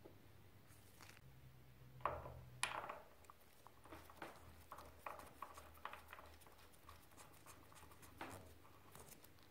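Faint clicks and taps of small metal parts being handled as an aluminium adjuster valve is threaded by hand into a Showa rear shock's reservoir, with two louder knocks about two seconds in.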